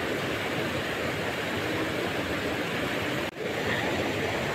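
Steady rush of a rocky mountain stream, with a momentary gap a little over three seconds in.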